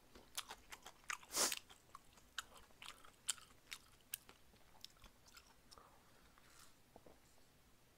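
Close-miked mouth sounds of a person drinking makgeolli from a glass: a run of wet clicks, gulps and swallows, with one louder gulp about a second and a half in, thinning out after about five seconds.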